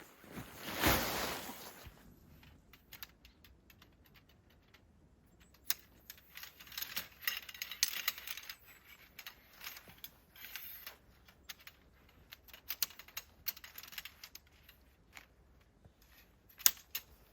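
A brief rushing noise about a second in, then scattered light clicks and small clatter, irregular and sometimes bunched together.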